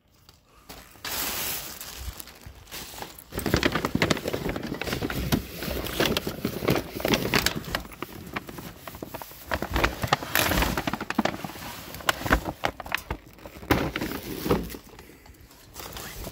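Rubbish being rummaged through by hand: plastic bags crinkling and rustling, with scattered clatters of cardboard and hard items. It starts about a second in, grows louder after about three seconds and dies away near the end.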